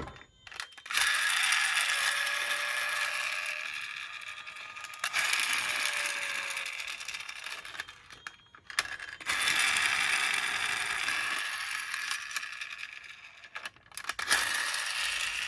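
Toy minicars running across a hard surface with a fast clicking, rattling whir of small wheels and gears, three runs in turn, each starting suddenly and fading away.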